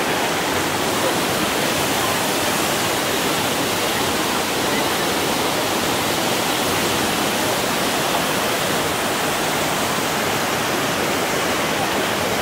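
Rushing water of a mountain waterfall and its stream, a steady loud rush without a break.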